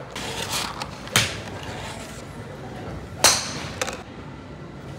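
A few sharp knocks or clacks, the loudest about three seconds in, over steady background noise.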